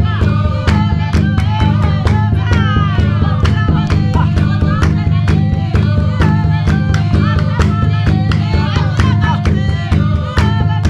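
Music with singing over a quick, steady beat and plucked strings.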